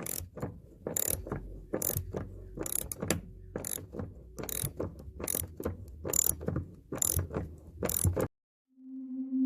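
A run of sharp mechanical clicks, about one to two a second, that cuts off suddenly near the end. Soft sustained synth music starts just after.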